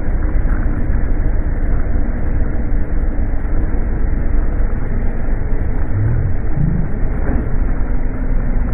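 Wind rush and engine of a Honda CBR600RR sport bike at speed, slowed down for slow-motion playback into a deep, muffled rumble. A couple of short rising tones come through about six seconds in.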